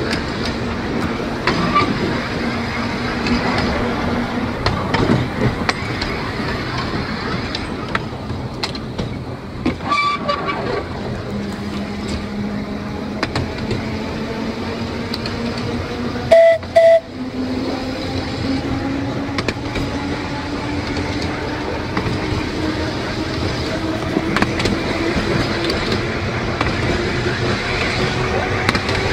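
Electric narrow-gauge tram running along the rails, its motor whine rising slowly in pitch as it gathers speed, with scattered clicks and knocks from the wheels on the track. About halfway through come two short, loud toots of a horn.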